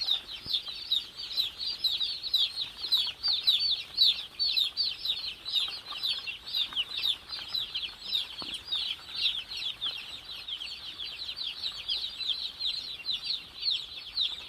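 Hundreds of day-old chicks peeping together in a brooder: a dense, unbroken chorus of short, high, falling peeps overlapping many times a second.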